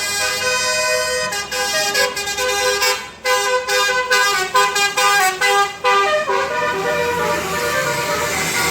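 Bus 'telolet' Basuri multi-note horn playing a tune: held notes stepping up and down in pitch, a run of short quick toots from about three to six seconds in, then held notes again.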